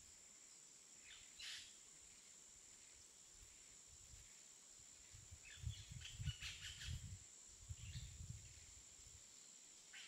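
Near silence with a steady faint hiss, then a cluster of soft clicks and low bumps between about five and eight and a half seconds in: a clear plastic eyeshadow palette case being handled.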